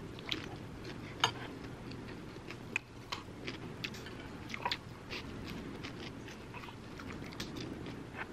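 Metal spoons clinking and scraping against small ceramic bowls while food is scooped out, as light, irregular clicks several times a second, the sharpest about a second in and again near the middle.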